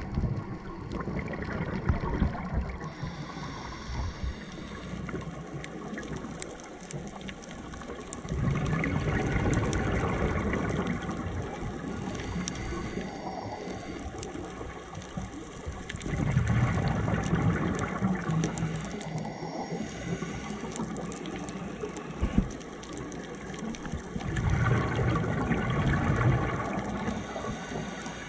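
Scuba diver breathing through a regulator underwater: exhaled air bubbles out in a low, bubbling rush roughly every eight seconds, three times, over a steady watery background with scattered fine clicks.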